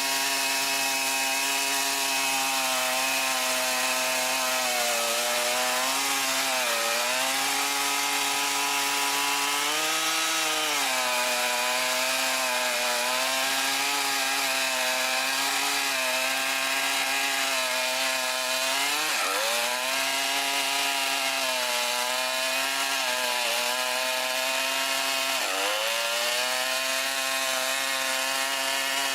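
Long-bar chainsaw running at high revs while cutting through a thick tree trunk; the engine pitch sags under load and recovers, dipping sharply three times.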